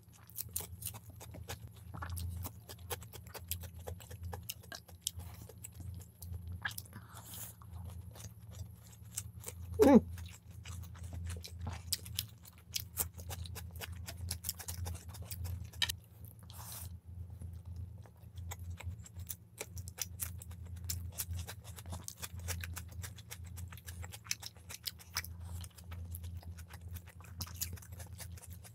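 Close-miked chewing and crunching of two people eating chicken biryani by hand, with bites of raw cucumber, over a steady low hum. About ten seconds in there is one brief, loud sound that drops in pitch.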